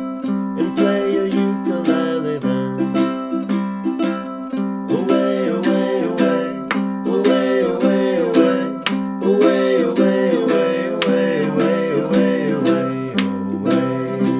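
Several layered ukulele parts strummed and plucked in a steady rhythm, with a man's voice singing a melody over them through the middle of the stretch.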